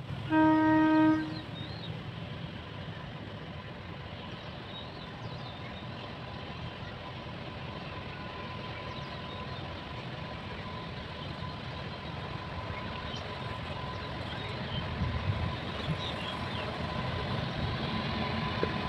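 An Indian Railways WAG-9HC electric locomotive's air horn gives one toot about a second long just after the start. Then the steady rumble of the approaching locomotive slowly grows louder, with a faint steady whine over it.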